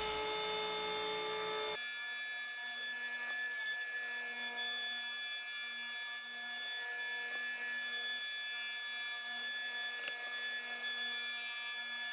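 Table saw running and crosscutting wood-and-epoxy coaster blanks on a sled, a steady machine sound that shifts abruptly about two seconds in.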